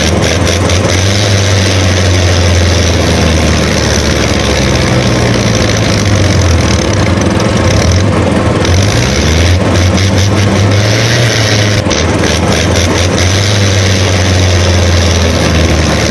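An engine running steadily throughout, its low pitch stepping up and down a few times.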